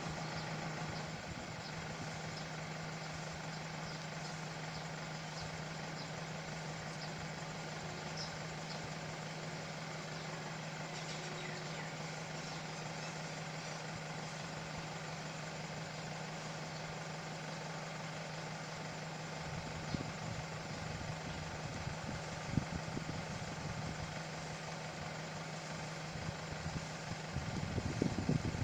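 A steady mechanical hum, like an idling engine, runs throughout. A few low thumps come in the last third.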